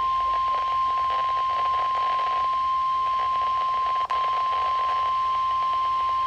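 NOAA Weather Radio 1050 Hz warning alarm tone: one steady, loud high tone with a very brief break about four seconds in. It is the alert-receiver activation signal, sent here as a weekly test.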